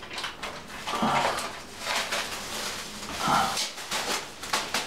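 Thin plastic drop-cloth sheeting crinkling and rustling as it is pressed against the wall and taped along the ceiling edge, with two brief pitched sounds, about a second in and just past three seconds.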